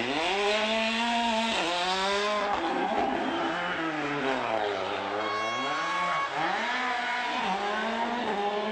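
Rally car engine revving hard, its pitch climbing and dropping again and again as it shifts gear, lifts off and accelerates. A brief steady high whine comes in about five seconds in.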